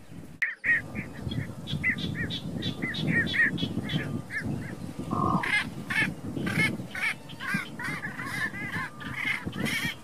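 Waterbirds calling in a wetland: a rapid run of short, honk-like notes, several a second, starting about half a second in, over a steady low background noise.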